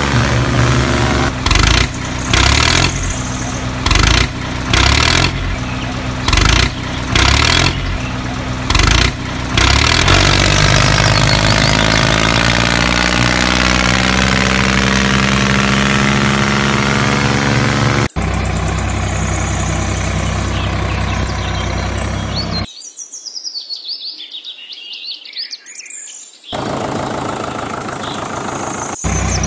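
Small engine of a DIY miniature tractor running, surging up and down in a series of short bursts, then running steadily as its pitch slowly rises. After an abrupt change it runs on; a quieter stretch of a few seconds follows with birds chirping, then the engine is heard again.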